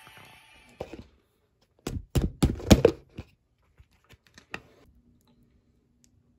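Plastic lid and cup of an instant cup-rice container being handled: a quick run of sharp plastic clicks and rattles, loudest about two to three seconds in, followed by a few light taps. After that only a faint steady hum is left.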